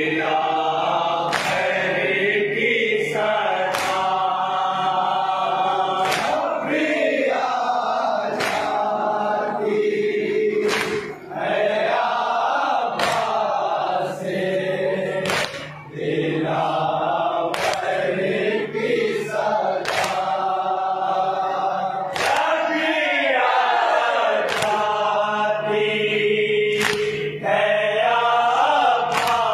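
A group of men chanting a nauha (Shia lament) in unison through a PA microphone. Regular chest-beating strikes (matam) keep time, about one every three quarters of a second.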